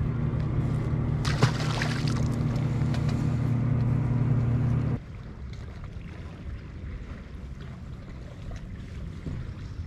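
Steady low hum of a bass boat's motor, with a short burst of noise about a second and a half in; the hum cuts off abruptly about five seconds in, leaving fainter wind and water noise.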